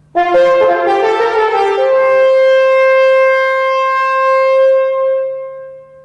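French horn played solo: a quick run of notes, then one long held note that fades away near the end.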